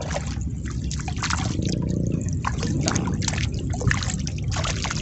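A hooked fish splashing at the pond surface as it is reeled in: a string of short, irregular splashes and drips of water.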